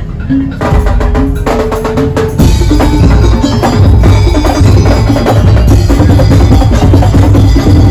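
Madurese daul percussion ensemble playing: wood-block beats, bell-like tones and a melody over drums, with the full band and heavy bass drums coming in louder about two and a half seconds in.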